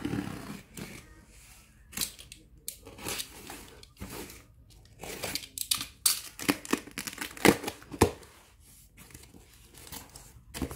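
Utility knife blade slicing through packing tape on a cardboard box, then the tape tearing and the cardboard flaps being pulled open. The result is a run of scraping, ripping and sharp cardboard snaps, densest and loudest past the middle.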